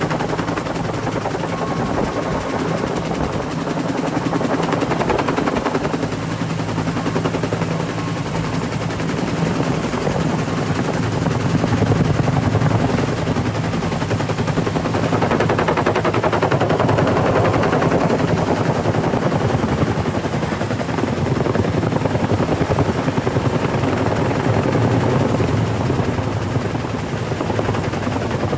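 Helicopter hovering low overhead with a steady, rapid rotor chop while it picks up a steel transmission tower section slung beneath it.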